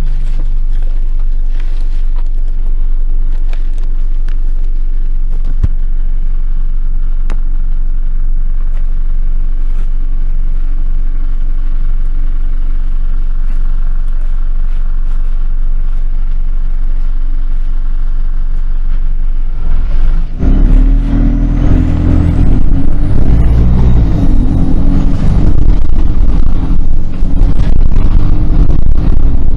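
Steady motor-vehicle rumble that grows much louder and rougher about twenty seconds in, followed by a thin high whine that rises and wavers.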